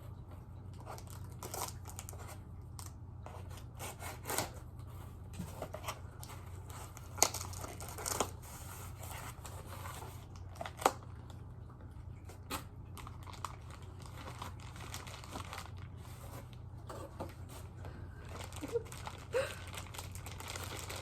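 Tape being peeled and torn off a figure's plastic packaging, with crinkling plastic and scattered rustles. Two sharper clicks stand out, about a third and halfway through, over a steady low hum.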